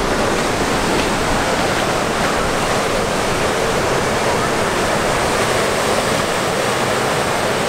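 Sea surf breaking and washing up the shore, a steady rushing noise.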